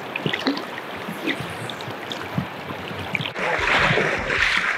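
River current rushing and gurgling around wading anglers, a steady wash of water noise with small splashes. About three and a half seconds in it grows louder and fuller, with a low rumble underneath.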